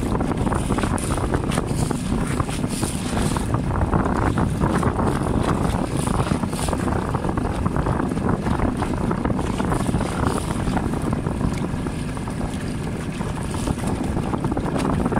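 Steady wind rumbling and buffeting across a phone microphone aboard a small boat under way.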